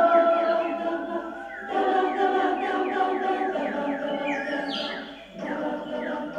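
Women's choir singing a cappella in sustained chords, with short breaks between phrases about a second and a half in and again about five seconds in.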